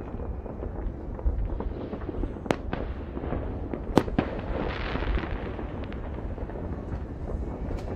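Distant New Year's fireworks going off across a city: a steady low rumble of far-off bangs, with sharp cracks about two and a half and four seconds in. The crack at four seconds is the loudest, and a crackling hiss follows it.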